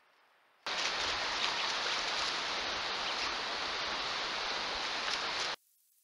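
Steady hiss of rain falling on forest foliage, with faint patter of drops; it cuts in abruptly about a second in and cuts off just as abruptly near the end.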